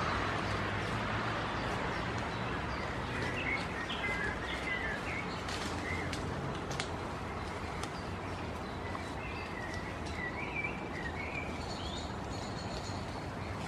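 Small birds chirping in short twittering phrases twice, over a steady outdoor background hum that fades slightly at the start. A few faint clicks are heard.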